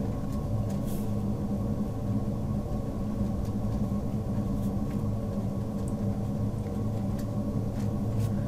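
Steady low hum with several fixed tones, with faint scratches of a pen writing on paper now and then.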